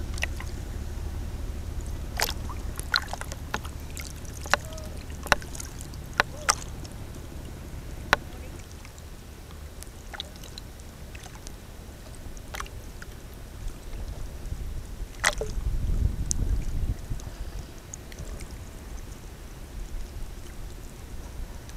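Sea water sloshing and lapping around a camera held at the surface, with a steady low rumble. Scattered sharp splashes and drips come mostly in the first half, and the rumble swells briefly about two-thirds of the way through.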